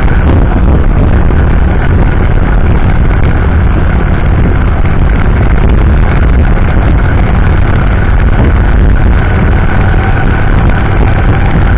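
Steady, loud riding noise picked up by a motorcycle-mounted camera: the rush of wind and the engine at cruising speed, heaviest in the low end, with a faint steady whine above it.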